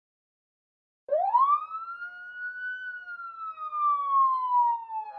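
Police siren wailing: about a second in it starts and sweeps quickly up in pitch, holds briefly, then slowly slides back down.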